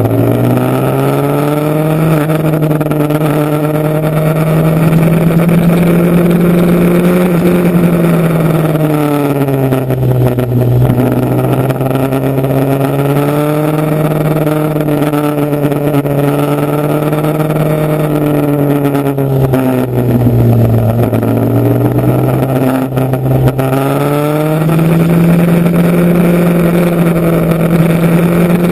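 Motorcycle engine running steadily under way, its note rising and falling several times as the throttle opens and closes.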